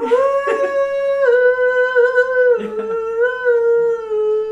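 A man singing long, drawn-out high notes: one held note, a short break about two and a half seconds in, then a slightly lower note held with a slight wobble.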